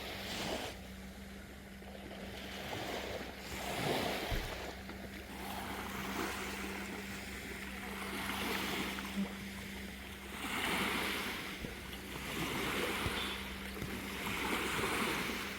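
Calm sea: small waves washing in, swelling and fading every two to three seconds, over a steady low hum.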